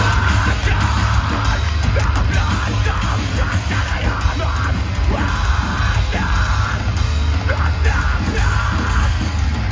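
Metalcore band playing live at full volume, with screamed vocals over guitars, bass and drums.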